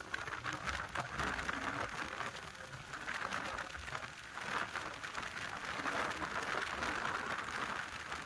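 Riding noise from a Yamaha R15 V3 motorcycle's 155 cc single-cylinder engine under a steady rush of wind over a helmet-mounted microphone. The loudness surges and eases as the bike is ridden.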